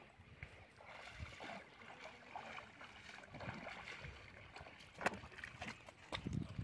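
Footsteps wading and sloshing through shallow water, then stepping through wet mud, with scattered small splashes and a sharp click about five seconds in.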